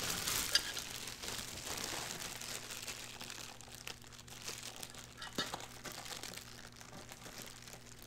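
Clear plastic bag crinkling as a pit-bike exhaust header pipe is pulled out and the bag is handled. It is loudest in the first couple of seconds and softer after, over a faint steady low hum.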